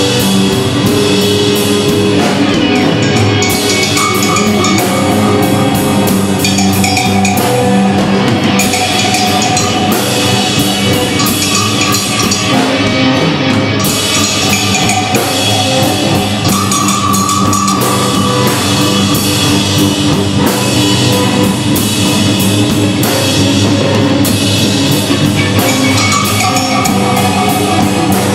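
Live band jamming loudly: a drum kit keeps up dense, continuous hits under held bass and guitar notes, with electronic loops layered in.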